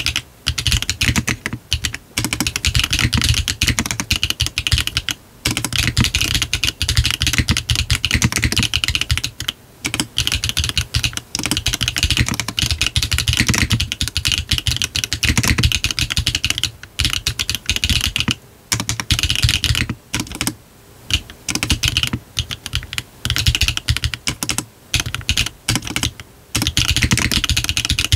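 Fast, continuous typing on a GDK DK1-TKL custom mechanical keyboard with a brass bottom case, Yogurt switches, a 1.6 mm PCB, no foam and hard bean gaskets, under cherry-profile PBT keycaps. The typing breaks off briefly now and then.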